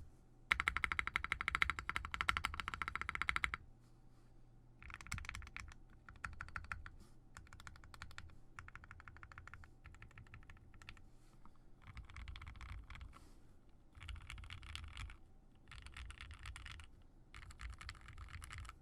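Typing on a TGR x Singa Unikorn custom mechanical keyboard with lubed 55g Gateron Ink switches on a polycarbonate plate. A fast, louder run of keystrokes comes first, then several shorter bursts of typing with brief pauses between them.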